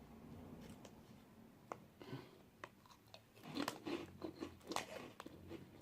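Someone chewing crunchy puffed chips: a few scattered crunches, then a quicker run of crunching bites from about three and a half seconds in.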